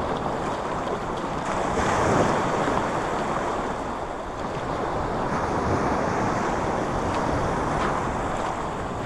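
Small waves breaking and washing on a pebble beach, mixed with wind buffeting the microphone.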